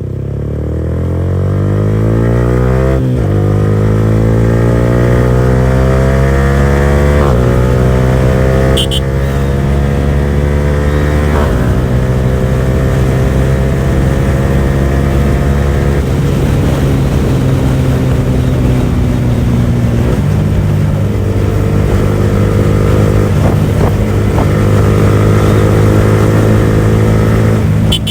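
Yamaha R15 V4's single-cylinder engine through an aftermarket R9 exhaust at full throttle, accelerating hard through the gears with five quick upshifts. The pitch climbs fast at first, then ever more slowly in the top gears as the bike nears its top speed.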